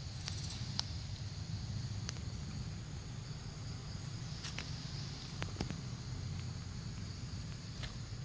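Forest ambience: a steady high insect drone over a low rumble of wind on the microphone, with scattered small clicks and rustles from monkeys moving on leaf litter and rock.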